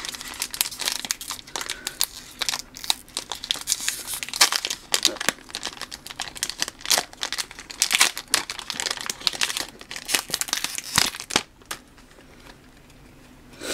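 Pokémon trading card booster pack wrapper being torn open and crinkled by hand: a long run of sharp crackles. It goes quiet near the end as the cards come out.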